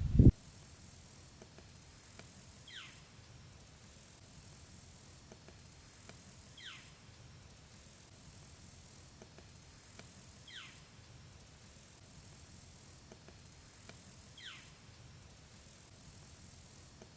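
Quiet background music: a shaker-like rattle pattern repeating in a steady cycle, with a short falling whistle about every four seconds.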